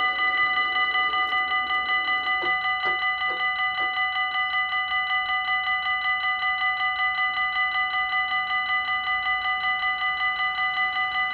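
Dutch level crossing warning bell ringing steadily in rapid, even strikes, the signal that a train is coming and the barriers are down.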